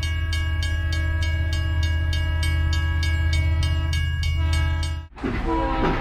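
Train horn held on several notes over a deep steady rumble, with a regular clack about three times a second. It cuts off suddenly about five seconds in, and music takes over.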